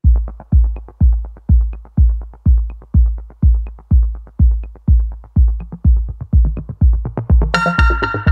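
Electronic dance music with a heavy kick drum about twice a second; a bright, higher synth layer comes in near the end.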